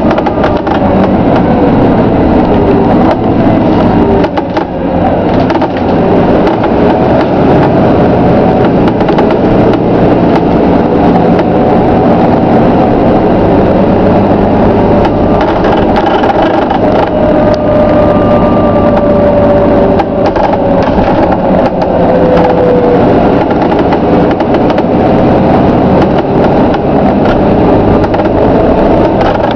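Volvo B9TL double-decker bus with a Wright Eclipse Gemini body on the move: steady engine and road noise with the body creaking. A long, slowly falling tone sounds about two-thirds of the way in.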